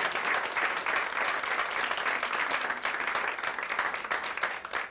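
Small studio audience applauding, many hands clapping at a steady level.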